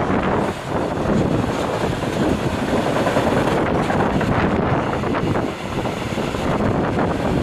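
Freight train of double-deck car-carrier wagons rolling past at speed: a steady, loud rush of steel wheels on rails, dipping briefly twice.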